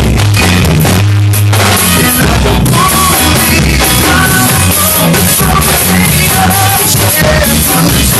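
Rock song with singing, bass, guitar and a drum kit playing along; the drums and cymbals drop out briefly about a second in, leaving a held bass note, then the full band comes back in.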